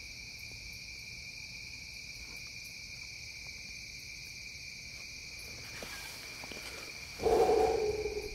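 Steady chorus of crickets, with a short, louder sound about a second long near the end.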